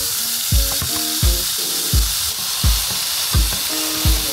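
Ground turkey sizzling steadily in hot olive oil in a stainless steel skillet. Background music with a steady beat plays over it, and its thumps are the loudest thing heard.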